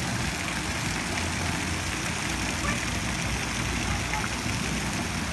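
Water spraying and splashing at a splash-pool play structure: a steady rushing hiss over a constant low rumble.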